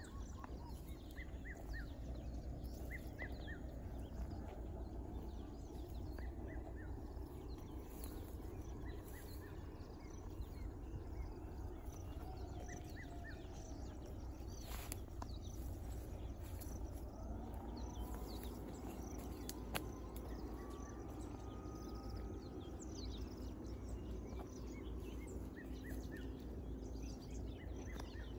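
Rural outdoor ambience: many short bird chirps over a steady low rumble, with a faint drawn-out tone in the middle and a couple of sharp clicks.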